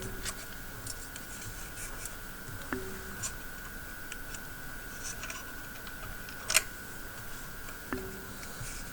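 Small clicks and taps of hand tools being handled at an electronics soldering bench, with one sharper click about six and a half seconds in, over a steady high-pitched whine.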